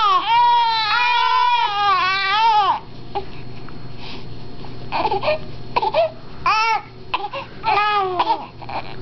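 Young infant crying: one long wavering wail for nearly three seconds, then shorter fussy cries on and off.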